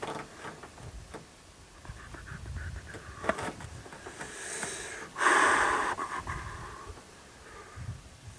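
Shooter breathing, then a single shot from a Remington 700 bolt-action rifle in .308 Winchester about five seconds in, its report fading over about a second.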